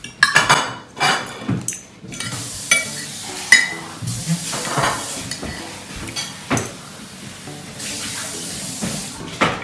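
Fork and spoon scraping and clinking against a plate while someone eats, with a few sharp clinks scattered through.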